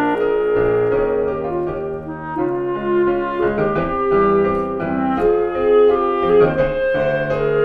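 Clarinet playing a flowing melody of held notes over piano accompaniment: an instrumental duet arrangement of a choral song.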